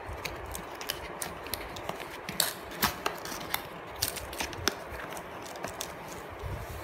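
Cardboard box handled and its flap worked open by hand: irregular rustling and scraping with scattered sharp clicks and taps, the loudest two about two and a half to three seconds in.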